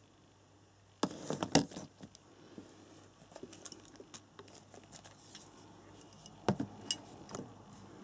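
Handling noise: a blister-packed hop-up part and a spray paint can being picked up and moved about, giving rustles, clicks and light knocks. The busiest bursts come about a second in and again around six and a half seconds in.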